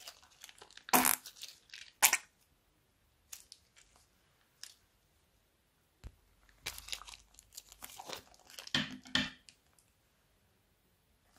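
Plastic piping bags full of slime crinkling and rustling as they are squeezed and handled, in short scattered bursts: a couple about one and two seconds in, then a cluster from about seven to nine seconds in.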